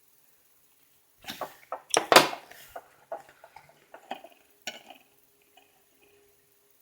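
Hard parts being handled and set down on a tabletop: a run of knocks and clinks, loudest about two seconds in, dying away by about five seconds.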